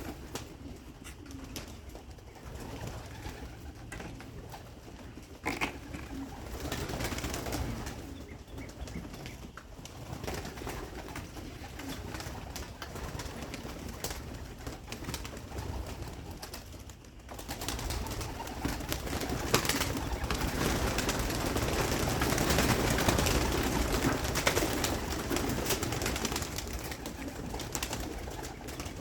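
Young homing pigeons cooing in the loft, with a louder rustling commotion in the last third as they crowd around at feeding time.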